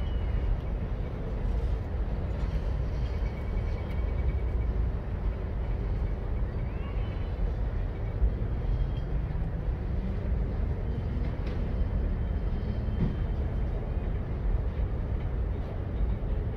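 Freight train of tank cars and covered hoppers rolling past: a steady rumble of steel wheels on rail, with a faint high squeal now and then.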